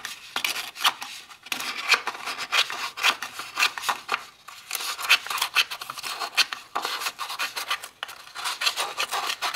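Small spring-loaded steel scissors of a SOG Baton Q1 pen tool cutting through a sheet of paper: a run of short crisp snips, about two or three a second, with a couple of brief pauses.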